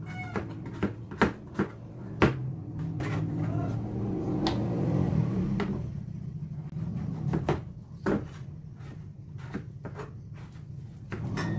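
Kitchen knife chopping green papaya on a plastic cutting board: irregular sharp taps of the blade hitting the board. A low steady hum swells in the middle, between two runs of taps.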